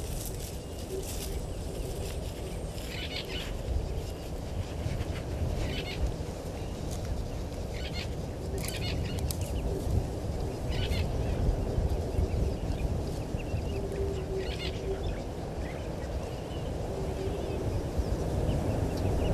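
Outdoor bush ambience: a steady low rumble with short bird chirps every few seconds. The rumble swells near the end.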